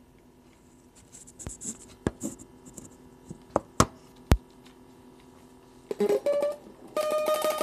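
Electric guitar being handled, with a few sharp knocks and scratches over a faint steady hum. About six seconds in, a few picked notes sound, and near the end these turn into fast repeated picking of a single note.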